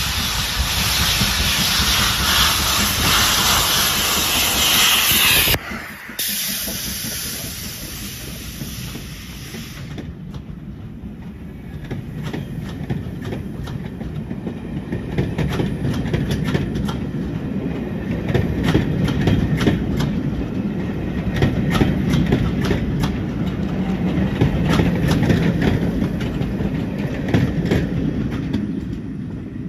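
LMS Stanier 8F 2-8-0 steam locomotive passing with its cylinder drain cocks open, a loud steam hiss for the first five or six seconds. Its train of coaches then rolls past with a low rumble and repeated clicks of wheels over the rail joints, fading near the end.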